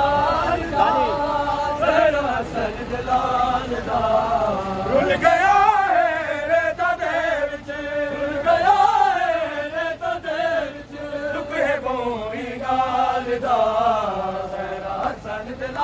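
Men chanting a Punjabi noha, a Shia mourning lament, in a melody that rises and falls.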